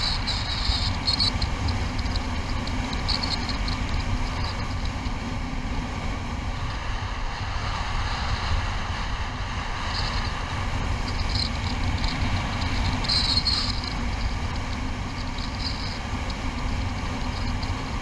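Wind noise on the microphone of a paraglider in flight: a steady low rumble of rushing air over a Nervures Rafale wing, with short high hissy gusts coming and going every few seconds.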